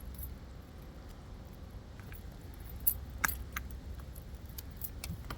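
Quiet handling noise: a few light clicks and taps, mostly in the second half, over a low steady rumble.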